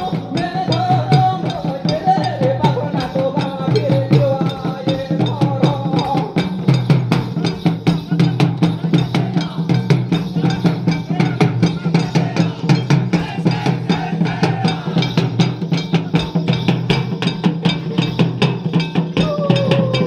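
Live Santhal folk dance music: barrel-shaped hand drums played in a fast, steady rhythm, with a wavering melody over the drumming for about the first six seconds.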